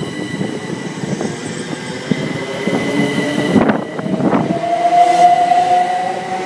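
c2c Class 357 Electrostar electric multiple unit pulling away from the platform, with a low rumble and a steady high tone. A couple of sharp knocks come from the train about three and four seconds in. Then the traction motors' whine starts and rises slowly in pitch as the train accelerates.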